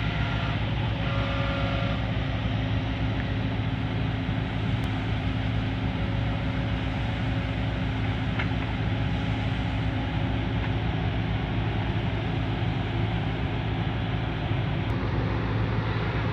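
Heavy diesel engines running steadily: a JCB tracked excavator working as it loads soil into a dump truck, with the truck's engine running close by. A continuous low hum with no letup.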